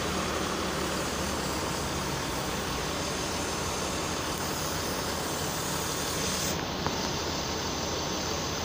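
Diesel engine of a large intercity bus idling steadily, a low even hum, with one faint click about seven seconds in.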